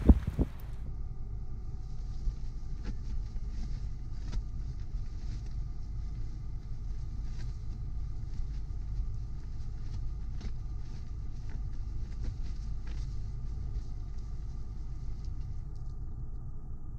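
Steady low rumble inside a camper van, with a faint steady hum and scattered light ticks.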